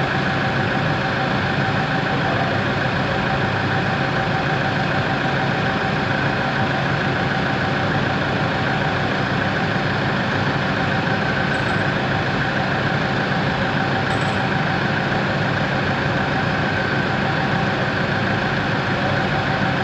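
Excavator's diesel engine idling steadily, with a constant whine over the engine note.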